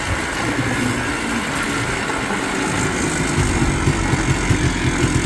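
1986 Polaris Scrambler 250's two-stroke engine running as the three-wheeler is ridden across grass, growing louder about three seconds in.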